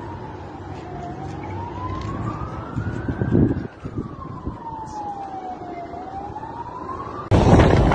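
A siren wailing, its pitch slowly rising and falling, each sweep up and down taking about five seconds, over a low noisy background with a louder burst about three seconds in. Near the end it cuts suddenly to loud wind buffeting the microphone.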